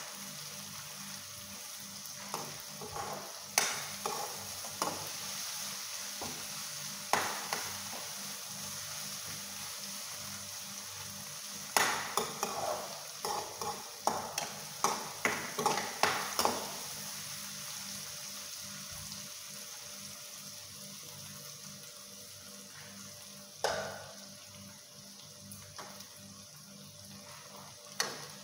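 Onions, garlic and curry leaves sizzling in hot oil in a frying pan as a tempering for the curry, with a steady hiss. A metal spoon scrapes and knocks against the pan as they are stirred, in a quick run of strokes about twelve to sixteen seconds in and singly now and then.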